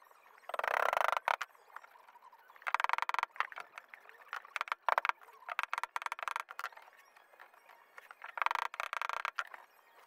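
Metal creaking and scraping in several short bursts as a thin metal plate is clamped in a bench vise and bent over with pliers.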